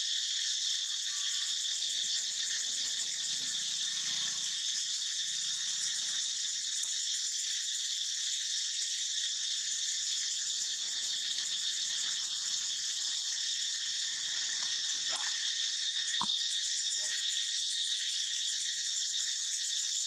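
A steady, high-pitched chorus of insects chirring without a break. A single short, sharp sound cuts in about sixteen seconds in.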